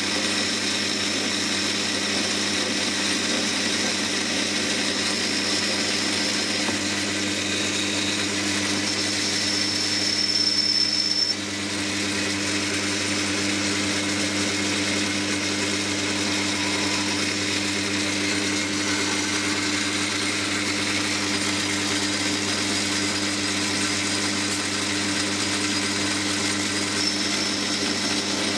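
Metal lathe running while turning a 304 stainless steel shaft: a steady machine hum with a high thin whine that comes and goes. The whine and overall level build about nine seconds in and drop off suddenly at about eleven seconds.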